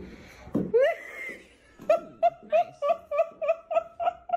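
A person laughing in a quick run of about a dozen short, evenly spaced bursts, about four a second, after a short rising cry near the start.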